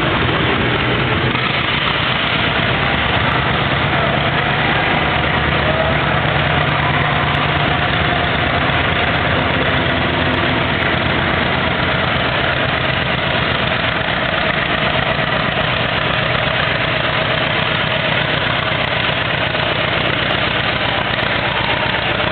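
Antique farm tractor's engine running steadily under heavy load as it drags a weight-transfer sled in a tractor pull, hard enough to lift the tractor's front wheels.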